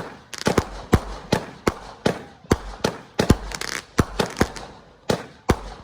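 Fireworks finale: rapid, irregular bangs of exploding fireworks, about three or four a second, with crackling after some of the bursts.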